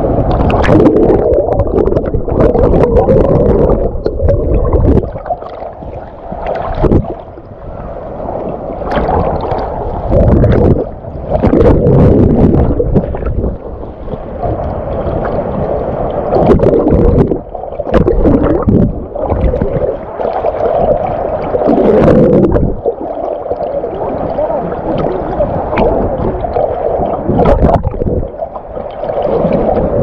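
Strong wind gusting against the microphone in irregular surges, over the wash of waves on the beach.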